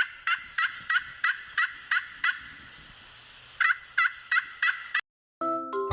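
Emu call: a string of short, sharp calls repeated about three times a second, pausing about halfway before a few more, then stopping; a children's music jingle starts near the end.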